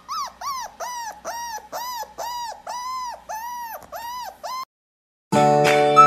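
Golden retriever puppy whining in a quick, even string of high, arched whimpers, about two and a half a second, begging as the litter crowds a hand offering food. The whining cuts off, and after a short gap music begins near the end.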